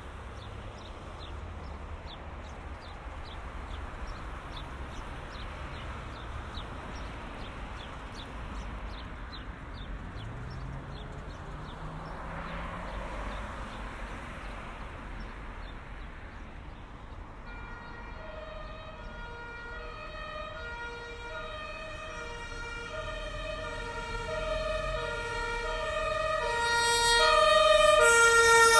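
Street traffic, then, about two-thirds of the way in, a German two-tone emergency-vehicle siren (Martinshorn) switching back and forth between two pitches, growing steadily louder as the vehicle approaches.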